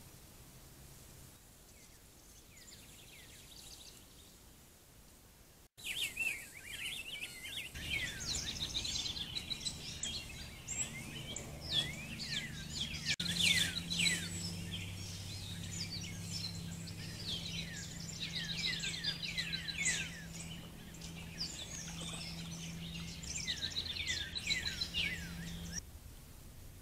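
Several songbirds singing together in a dawn chorus of quick falling chirps and short trills, starting abruptly after a few quiet seconds and stopping near the end. A low steady hum runs underneath.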